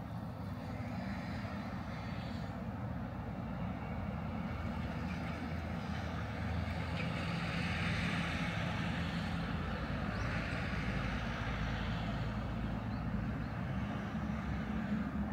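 Road traffic: steady engine hum and tyre noise, swelling as vehicles go by about seven seconds in and again near ten seconds.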